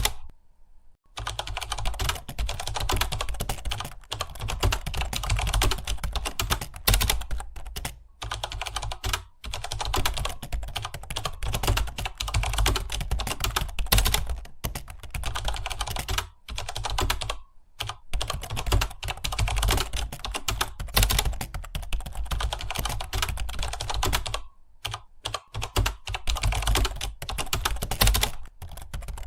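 Computer keyboard being typed on in rapid, continuous keystrokes, pausing briefly a few times.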